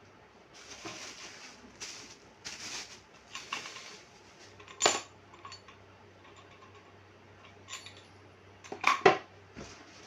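Standing-fan parts being handled during assembly: rustling, then hard clacks and clinks. There is a sharp clack about five seconds in and a louder cluster of clacks about nine seconds in.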